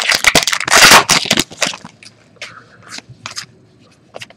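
Plastic-foil wrapper of a trading card pack being torn open and crumpled by hand: a dense crackling for about a second and a half, then a few lighter crinkles.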